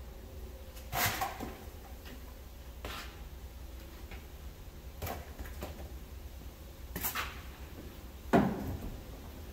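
A handful of scattered knocks and clunks, about six spread unevenly over several seconds, over a low steady hum. The loudest comes near the end and trails off in a short falling tone. The engine is not running.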